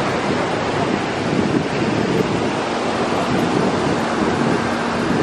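Ocean surf breaking and washing up on a sandy beach: a steady rush of waves.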